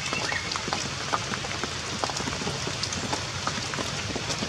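Heavy rain falling steadily, a dense patter with many individual drops striking surfaces.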